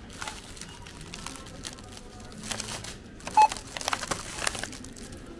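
A thin plastic produce bag of tomatoes crinkles as it is handled over a Wincor Nixdorf self-checkout scanner. A little past the middle the machine gives one short electronic beep.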